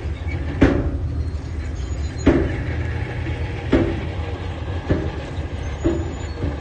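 Heavy diesel construction machine running steadily with a low rumble, with a sharp knock about every one to one and a half seconds, five in all.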